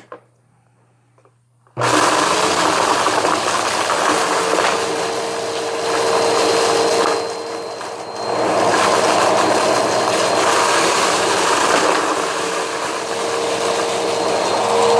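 Vacuum cleaner switched on almost two seconds in, then running loudly and steadily with a steady hum, its sound dropping briefly for about a second around the middle.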